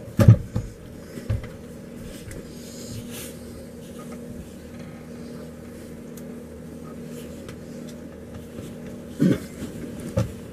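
Steady low hum of a motorhome's furnace blower running, with a few knocks and thumps of movement about the start and again near the end.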